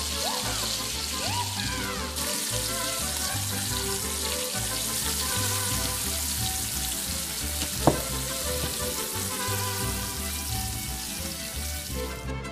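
Shrimp and chopped onion sizzling as they fry in a skillet, with cream poured in partway through, over background music. A single sharp knock about eight seconds in is the loudest sound.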